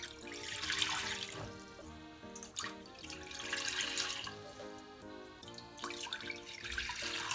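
Water poured from a plastic measuring jug into three stainless steel pots one after another: three pours of a second or two each, over soft background music.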